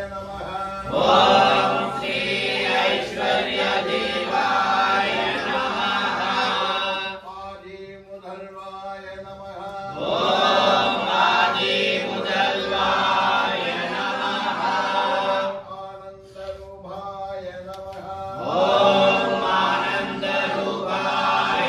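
Group of men chanting Hindu mantras in unison during a fire offering (homam), the name-chant of the deity with "Om … namah". The chant comes in three loud phrases, about a second in, near the middle and near the end, each swelling in, with quieter chanting between them.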